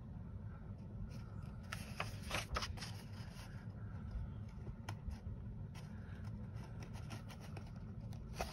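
Paper pages of a paperback coloring book turned and handled by hand: soft rustles and a few light clicks, most of them about two to three seconds in, over a steady low hum.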